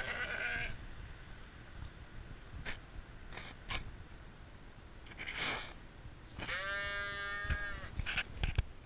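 A sheep bleats once, a single call of about a second, a little past halfway through, among scattered knocks and rustles of sheep nosing and bumping the camera.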